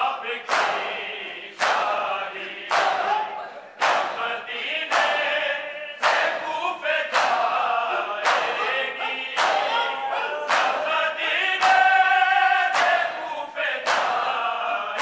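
A men's group chanting a noha, a Shia lament, in chorus, while a crowd beats their chests in unison (matam). The strikes land sharply about once a second, keeping the beat of the chant.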